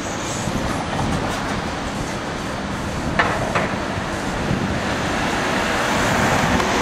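Z-class tram moving slowly along a wet street, with steady traffic noise of tyres on the wet road. Two short sharp sounds come about half a second apart, some three seconds in.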